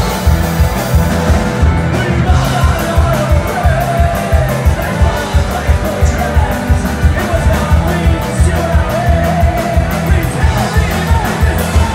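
Folk-punk band playing live and loud: a fast, steady drum beat with bass and guitars, and a fiddle carrying the melody in an instrumental passage.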